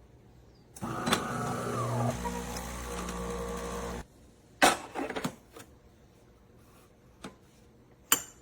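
An automatic espresso machine's motor runs for about three seconds, its pitch dropping at first and then holding steady, and stops suddenly. A few sharp mechanical clicks and knocks follow, the last near the end.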